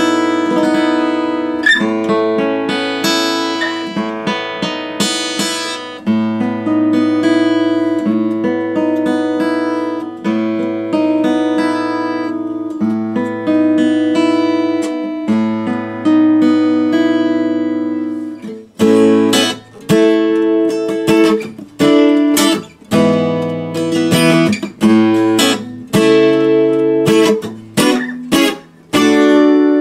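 Koa dreadnought acoustic guitar played with a flat pick: ringing picked chords, then from about two-thirds of the way in, short, choppy strummed chords that are cut off sharply between strokes.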